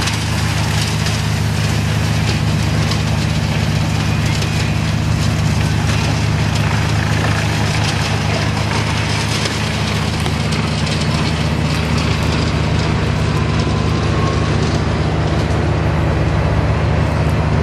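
A wood chipper running steadily over a constant low engine hum, with a dense crackle of branches being chipped.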